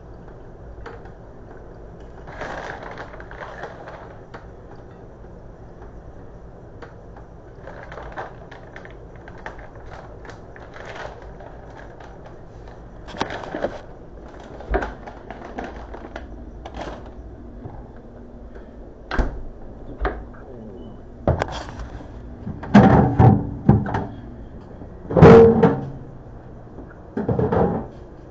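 Handling noise on a kitchen counter: scattered light knocks and taps, then a run of loud thuds and clunks in the last few seconds as things are picked up and set down.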